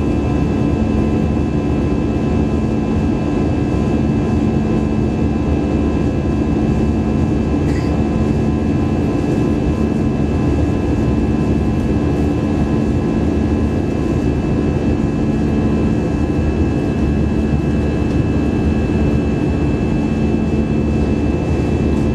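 Airbus A320-200 jet engines running steadily with rushing air, in a constant noise with several steady hums that do not change.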